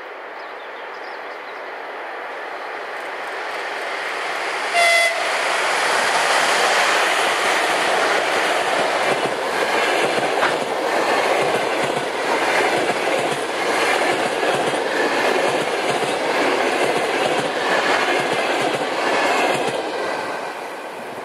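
A ChS7 electric locomotive hauling a passenger train approaches and passes, getting louder for about five seconds. It gives one short horn blast about five seconds in. The coaches then run by with a rhythmic clickety-clack of wheels over rail joints, and the sound fades near the end.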